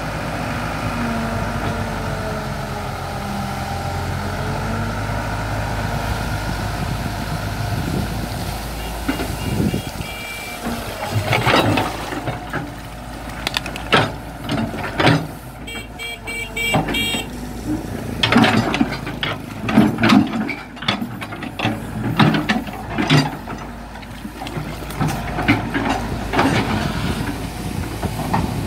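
Caterpillar E120 hydraulic excavator's diesel engine running steadily. From about eleven seconds in, irregular clanks and thuds come over it as the bucket dumps and works mud against the bank.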